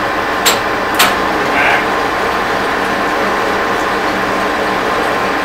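A 1943 Sidney 16x54 engine lathe running with a steady gear-drive hum. Near the start come two sharp clicks about half a second apart from its apron levers being worked.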